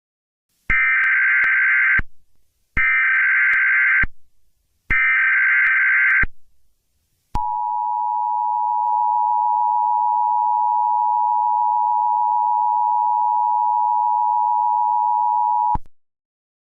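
Emergency Alert System SAME header: three screechy data bursts, each a little over a second long, followed by the EAS two-tone attention signal, held steady for about eight seconds and cutting off suddenly.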